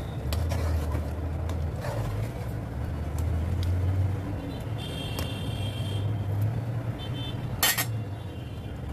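A metal spoon stirring in a metal pot of masala and tomatoes, scraping and knocking against the pot, with a sharp clink about three-quarters of the way through. A steady low hum runs underneath.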